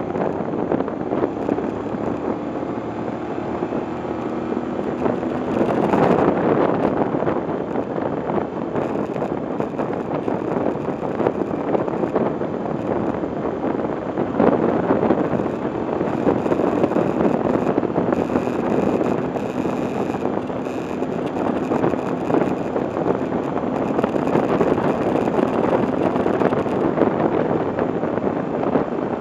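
Motorcycle engine running while riding, its note rising and falling with the throttle, under steady wind rushing over the microphone.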